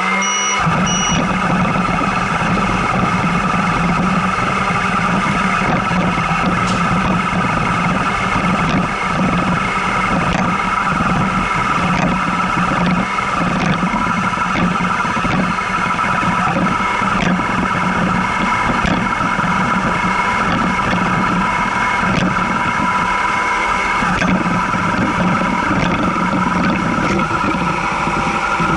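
Redmond RV-R300 robot vacuum running, its suction motor and brushes making a loud, steady whine and hum, heard close-up from on top of the machine. A short string of high beeps sounds in the first second, and faint clicks come now and then.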